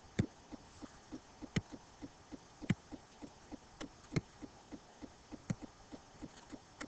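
Computer mouse clicks, sharp and spaced a second or so apart, as numbers are entered button by button on an on-screen calculator. Beneath them runs a faint, fast, regular soft tapping, about three taps a second.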